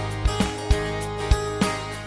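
Background music with a steady beat and sustained instrument tones.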